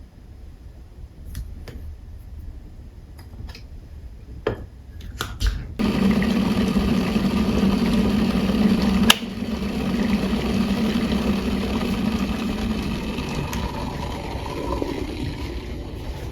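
A few clicks and knocks, then about six seconds in a small motor starts and runs with a steady hum, easing off near the end; one sharp click about nine seconds in.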